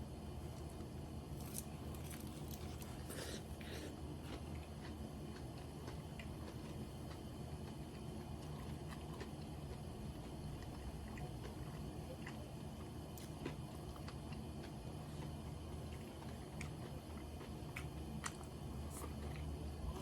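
A person chewing and biting karaage (Japanese fried chicken) and rice close to the microphone, with scattered small crunches and mouth clicks over a steady low hum.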